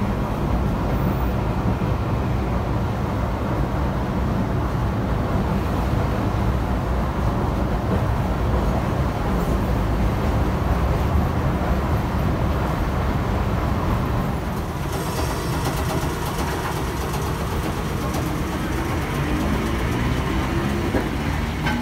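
Tosaden 600-type street tram running, heard from inside the car: a steady low rumble of wheels and motors. About fifteen seconds in, the sound changes to the street outside with a steady hiss, and near the end a passing tram's motor whine rises as it pulls away.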